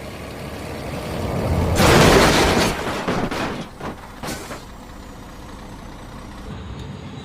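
A toy tanker truck being handled and put into a container: a rustling scrape lasting about a second, then a few light knocks.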